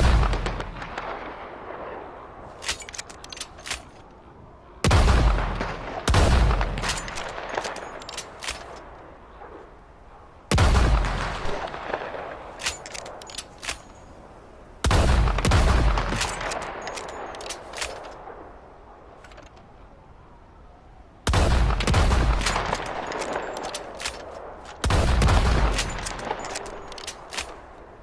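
Sawed-off shotgun fired six times, each blast dying away over a couple of seconds, with quick runs of sharp clicks in the gaps between shots.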